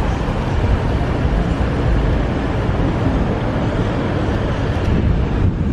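Steady traffic and road noise from a car driving along a busy street, dominated by a low rumble.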